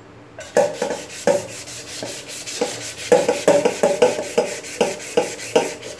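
Wet abrasive paper scrubbed briskly back and forth over the copper bottom of a stainless-steel milk pot, a rasping rub of about three to four strokes a second that starts about half a second in. The rubbing scours off the last of the black tarnish.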